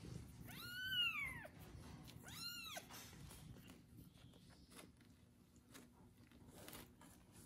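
Kitten meowing twice, a long high call rising and falling and then a shorter one; by the owner's account this kitten cries for its mother's warmth and affection, not from hunger.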